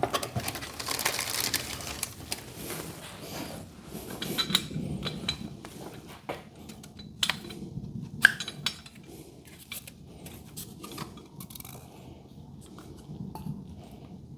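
Metal hardware and hand tools clinking and clattering as they are handled, with scattered sharp metallic ticks, the sharpest about eight seconds in.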